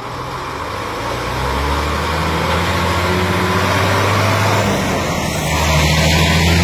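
Fire truck engine running as the truck drives up and passes close by: a low steady engine note that grows louder over the first two seconds, dips briefly about four and a half seconds in, then comes back loudest near the end as the truck goes past.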